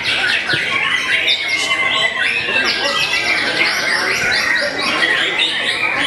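White-rumped shama (murai batu) singing: fast runs of sharp, rapidly repeated notes and whistled phrases, with other competing birds overlapping.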